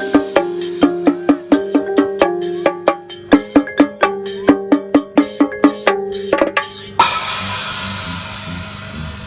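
Percussive music: a quick run of sharp wood-block-like strikes over a held low note, ending about seven seconds in with a loud crash that rings and slowly fades.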